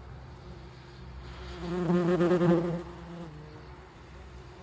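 A yellow jacket wasp's wing buzz, swelling as it flies close past, loudest about two seconds in, then fading away about a second later.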